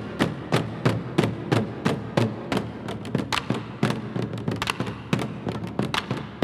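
Korean barrel drums (buk) struck with wooden sticks in a steady rhythm, about three strokes a second, with a run of quicker, lighter strokes about midway.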